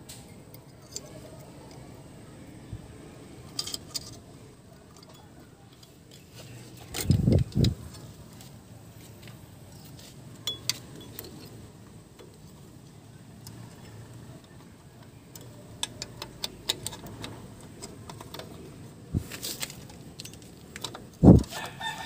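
Small metallic clinks and jangles of drum brake shoes, return springs and hold-down hardware being handled and fitted by hand, with a pair of dull thumps about seven seconds in and another near the end.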